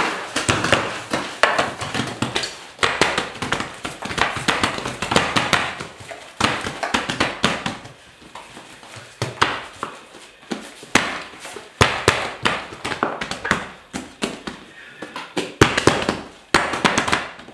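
Irregular knocks and taps from bread-making work, several a second, with short pauses between runs of them.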